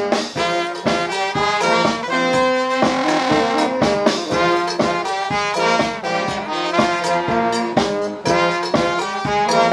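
Street brass band playing an upbeat tune: saxophones, trumpet and tuba over a bass drum keeping a steady beat of about two strokes a second.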